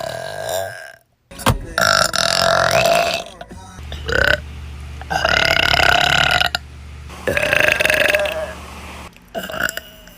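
A string of loud, drawn-out burps, about five in a row with short gaps between them, the longest lasting a second and a half.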